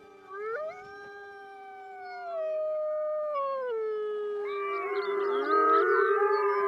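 Arctic wolves howling. One long howl rises in pitch about half a second in, holds and slowly falls. From about four and a half seconds in, several more wolves join in a chorus of overlapping howls.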